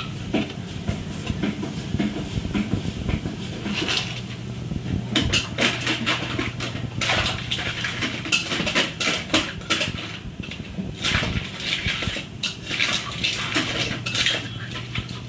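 Metal cookware and utensils clinking, knocking and scraping at a steamer pot, irregular and busier from about five seconds in, over a steady low hum.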